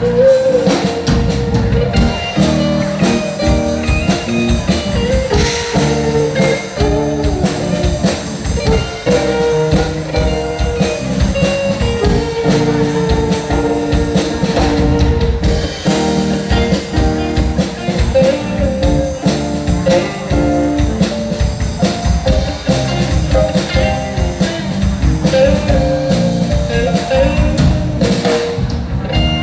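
Live band of electric guitar, bass, keyboard and drum kit playing together, with a busy drum beat under a guitar melody.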